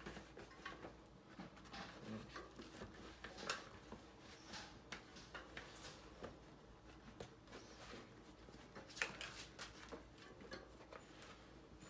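Faint handling noise: quiet rubbing and a few scattered small clicks from a fat-bike tire being worked onto its rim by hand.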